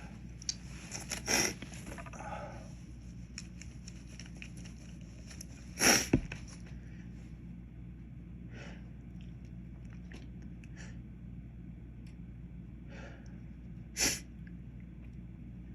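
Man sneezing in a fit set off by inhaled white pepper: a few sharp sneezes, the loudest about six seconds in and another near the end, with short sniffs and breaths between them.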